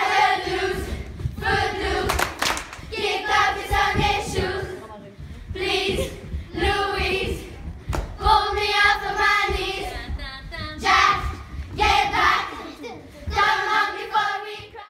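A group of girls singing a camp action song together in short, chanted phrases with brief pauses, and a few sharp claps.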